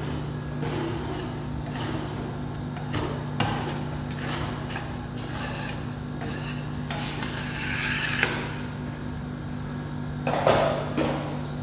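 Metal spatula scraping and tapping across the frosted steel cold plate of a rolled ice cream machine, in short strokes over a steady low hum, with a louder knock near the end.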